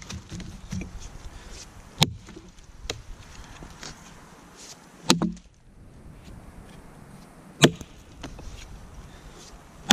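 Council Tool Boys Axe chopping into a felled log while bucking it: four sharp strikes of the bit into the wood, about two and a half seconds apart. The second strike lands with a duller, longer thud, and the last falls right at the end.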